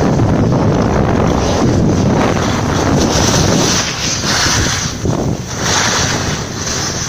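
Wind rushing over a moving camera's microphone while riding down a snow slope, a heavy low rumble at first. From about three seconds in, several short hissing scrapes of snowboard edges on snow.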